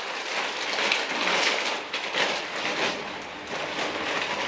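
Plastic snack packets being torn open and crinkled by several people at once, a dense, continuous crackling rustle.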